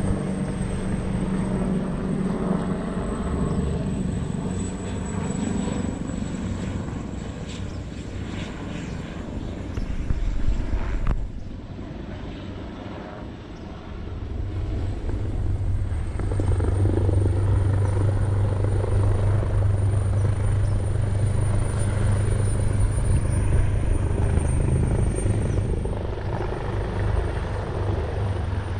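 Helicopter flying overhead, its rotor making a steady low thudding drone. It fades slightly before the middle, then grows louder for the second half as it comes closer.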